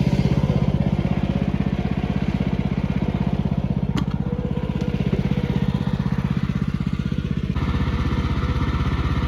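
Portable sawmill's engine running steadily with an even low chug, its sound shifting abruptly about seven and a half seconds in.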